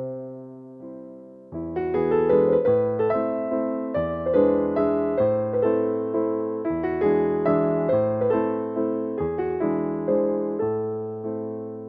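Background piano music: gentle chords and a melody, each note struck and fading, growing louder about a second and a half in.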